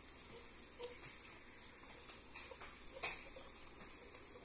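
Steady hiss of food sizzling in a pan, with a few sharp clicks of kitchen utensils, the loudest about three seconds in.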